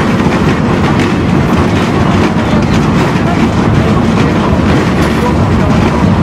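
Tram running along its track, heard from inside the car: a steady, loud noise of wheels on rails with a few faint clicks.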